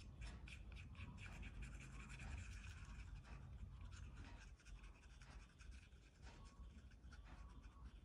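Felt-tip marker scribbling on paper in many quick, short strokes while colouring in, faint, over a low steady hum.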